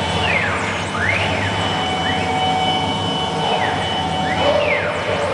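CNC wood router's axis drive motors whining as the gantry traverses, the pitch sweeping up and down about once a second as the axes speed up and slow down, over a steady machine hum.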